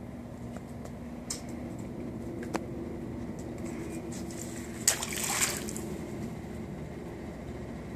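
A 10-inch hard-plastic glide bait landing in a swimming pool about five seconds in: a sharp smack and a brief splash. A steady low hum runs underneath.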